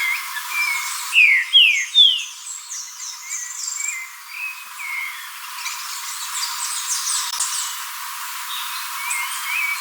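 Green-winged saltator singing: short whistled notes, with two loud downward-sliding whistles about a second and a half in. Fainter high chatter runs underneath in the middle.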